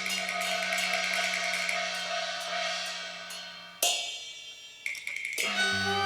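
Cantonese opera band's percussion: a cymbal crash ringing out and slowly dying away, struck again about four seconds in, with the melodic instruments coming back in near the end.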